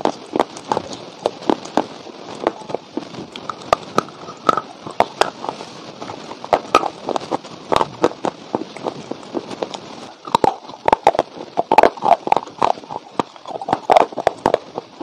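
Dry clay chunks crunched and chewed in the mouth: a dense run of sharp, irregular crunches, several a second.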